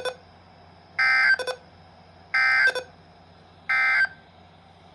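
EAS end-of-message data bursts from a NOAA Weather Radio broadcast, heard through a Midland HH54VP weather radio: three short, identical, buzzy warbling tone bursts about a second apart, marking the end of the required weekly test.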